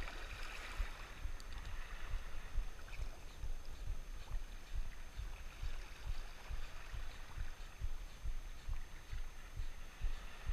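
Shoreline ambience: irregular low rumbling of wind on the microphone over soft water noise at the water's edge.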